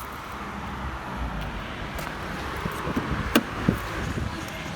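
Steady low rumble of motor vehicle noise, with a sharp click about three and a half seconds in.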